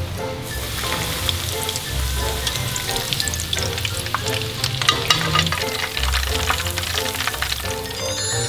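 Breaded pork-and-rice rolls deep-frying in a pan of hot oil: a steady sizzle with many small, quick crackles.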